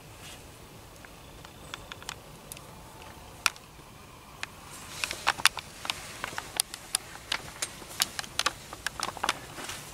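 Scattered sharp clicks and ticks, a few in the first half, then coming quickly, several a second, from about five seconds in until near the end.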